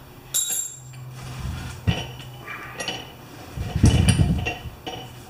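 Small metal clinks and rattles of a nut being spun by hand onto the bolt of a steel hold-down bracket on an anvil stump. There is a bright ringing clink about half a second in, scattered light clicks after it, and a louder, muffled rub of handling around four seconds in.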